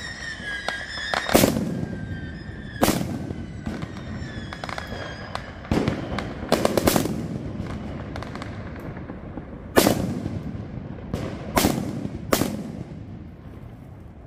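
Firecrackers exploding on pavement: about eight sharp bangs at irregular spacing, each with a short echo, with smaller pops and crackles between them. A high, thin whistle fades out in the first second and a half.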